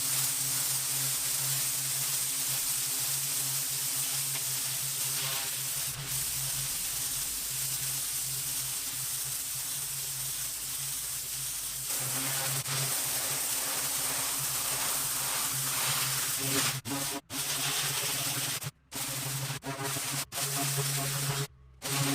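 Pressure washer cleaning concrete: a steady hiss of the high-pressure water jet over the low hum of the washer's engine. It breaks off in several brief dropouts near the end.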